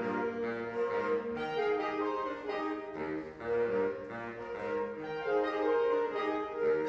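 Saxophone ensemble of eight playing together: sustained chords with moving lines, briefly dropping in loudness about halfway through.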